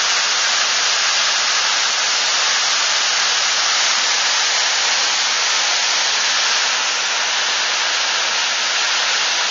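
Dam releasing water through its spillway and outlet valve jets: a steady, loud rushing hiss of falling and spraying water, mostly high with little deep rumble.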